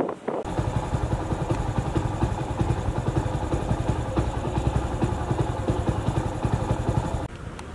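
A small engine idling: a steady low rumble with fast even pulsing, cut off abruptly near the end.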